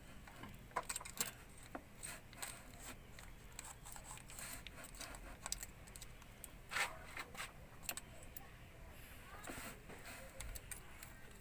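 Scattered light metallic clicks and taps of hand tools at work on the valve gear, as valve clearances are checked with a feeler gauge, with a slightly louder clatter about seven seconds in.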